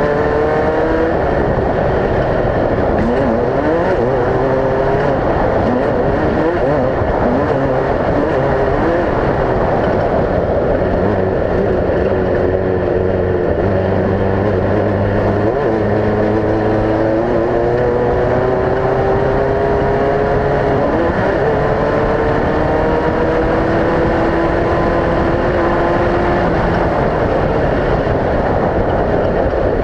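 Off-road race vehicles' engines running and revving as they pass, several engine notes gliding up and down at once over a constant loud noise.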